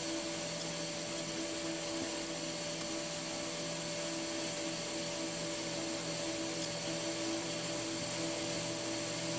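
Angle grinder with a chainsaw blade running steadily inside a wooden box, shredding snack food into powder: a steady motor drone with a hiss.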